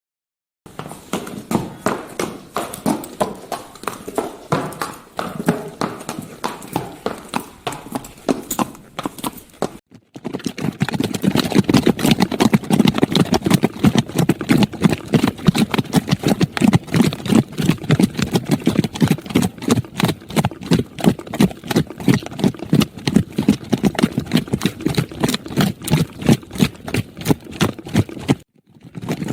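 Rapid, rhythmic clip-clop knocking like hoofbeats, a few strikes a second. After a brief break about ten seconds in it returns louder and denser, with another short gap near the end.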